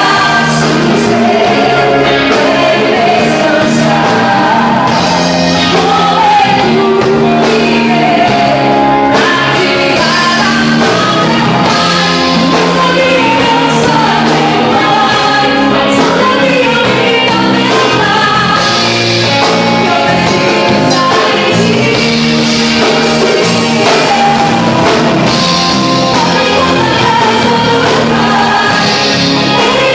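Christian worship band playing a song with singing, loud and continuous.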